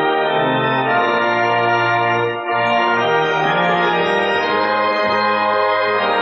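Church organ playing sustained full chords, with a brief break about two and a half seconds in as one chord gives way to the next.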